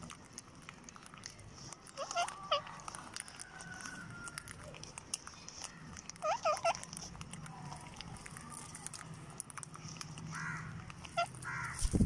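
Rose-ringed parakeets feeding on scattered grain: short wavy squawks about two and six seconds in and a few more near the end, over light pecking clicks. A loud thump comes right at the end.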